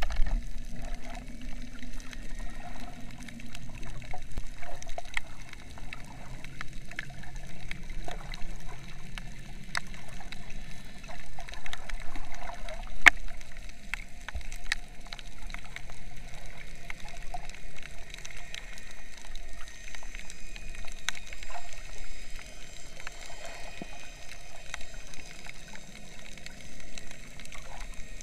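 Underwater sound heard by a submerged camera: a muffled, steady wash of water with scattered sharp clicks, the loudest about halfway through.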